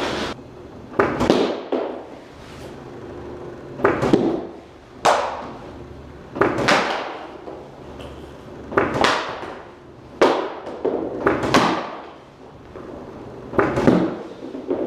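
Hockey pucks from a puck machine smacking into a goalie's leg pads, glove, blocker and stick on synthetic ice, a sharp hit every second or two, each ringing out in a bare concrete room.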